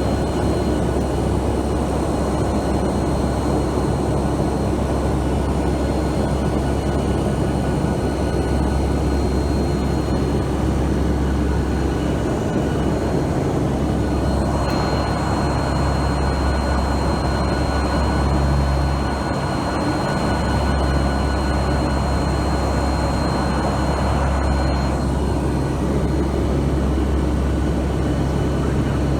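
Steady in-flight drone of a NOAA P-3 Orion hurricane hunter's four turboprop engines, heard inside the aircraft: a deep propeller hum with a faint high whine above it.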